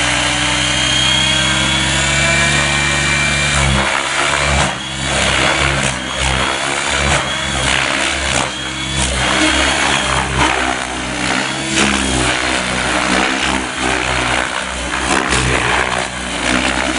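Gaui X7 electric RC helicopter flying at low head speed. For about four seconds the rotor and motor give a steady hum, then the sound keeps rising and falling, with repeated sharp swishes and chops as the blades load up in manoeuvres.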